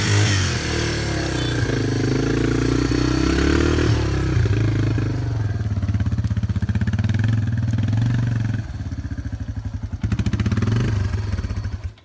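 Motorcycle engine running close by at low revs as the bike is ridden slowly over rough, muddy ground. The revs dip and rise in the first few seconds, then settle into a steady pulsing beat.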